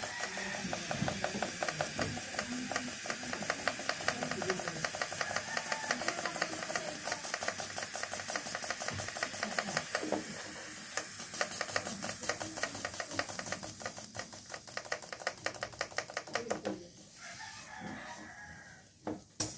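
Car fuel injector on an improvised tester, clicking open and shut in a fast, even rhythm while it sprays fuel with a hiss; it stops about three seconds before the end. The injector is pulsing and spraying as it should.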